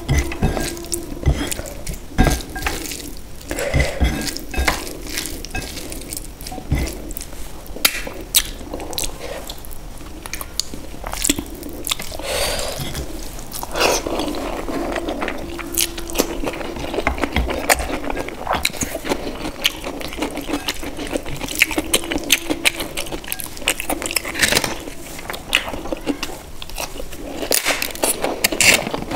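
Close-miked eating by hand: fingers squishing and mixing rice with paneer gravy against a plate, with wet chewing and lip smacks as a stream of small clicks. Near the end a roasted papad is broken with a crisp crack.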